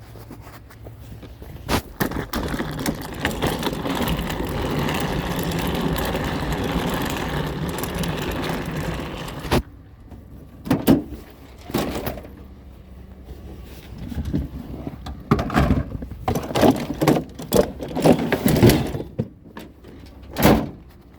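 A vehicle running steadily for several seconds until it cuts off abruptly, then a string of separate knocks and clunks.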